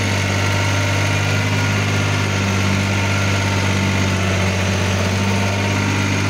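New Holland tractor's diesel engine running at a steady speed, heard from the driver's seat, with a strong constant low hum, while pulling a rotavator through tilled soil.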